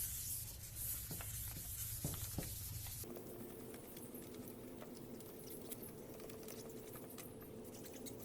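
Hand wet-sanding a plastic headlight lens with 2000-grit sandpaper: a run of short, scratchy rubbing strokes. The background changes abruptly about three seconds in.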